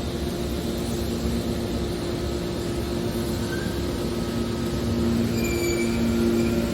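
Industrial machinery running with a steady low rumble and a two-note hum, with a few faint short squeaks in the second half.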